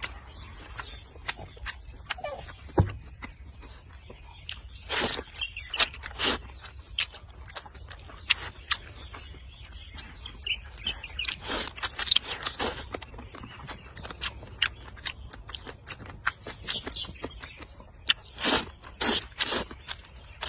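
A person slurping potato noodles from a bowl of soup and chewing, with many short mouth clicks. Longer, louder slurps come about five and six seconds in, around twelve seconds, and near the end.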